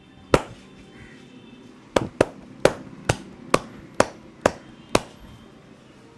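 Sharp slapping strikes of a barber's hands on the head during an Indian head massage: one, then a run of eight at about two a second.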